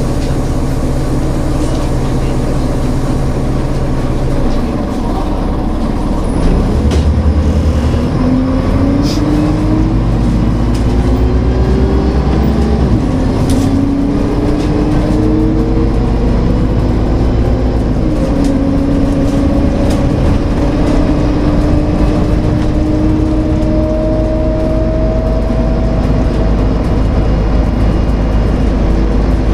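Karosa Citybus engine heard from inside the bus: idling for the first few seconds, then pulling away, its pitch rising as the bus gathers speed, with drops at gear changes about halfway through, then running steadily at cruising speed.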